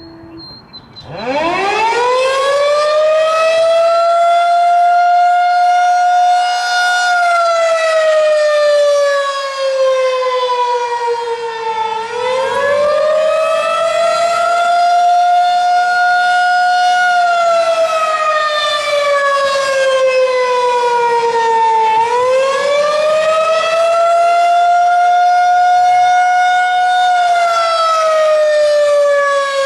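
Federal Signal 2001-SRNB electromechanical outdoor warning siren starting up about a second in and winding up to full tone. Its pitch then rises and falls slowly in cycles of about ten seconds.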